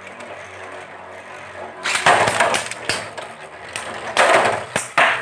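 Metal Beyblade spinning tops whirring in a stadium, then grinding and clashing against each other in rough surges with sharp clacks from about two seconds in.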